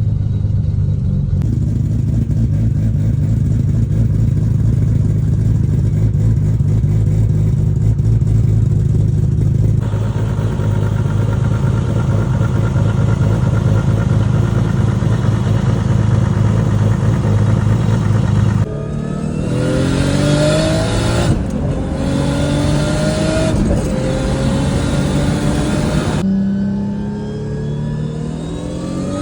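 Single-turbo RB26 inline-six of an R32 Nissan Skyline GT-R idling steadily, then pulling away about two-thirds of the way in. Its pitch climbs and drops back at each of a few quick sequential-gearbox upshifts.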